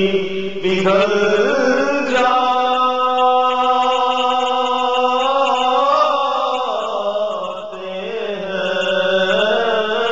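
A man's voice chanting a naat, an Urdu devotional poem, in long drawn-out melodic phrases. A single note is held for several seconds about two seconds in, then the melody falls away and picks up again near the end.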